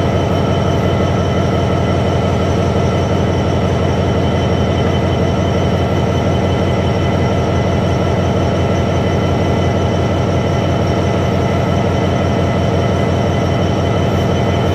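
A British Rail Class 66 diesel-electric locomotive idling at a standstill: its EMD two-stroke V12 diesel engine gives a steady, fast low throb, with a steady high whine over it.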